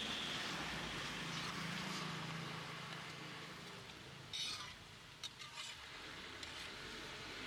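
Hot oil sizzling steadily as pazhampori (battered banana fritters) deep-fry, with a few short clicks and knocks a little past halfway.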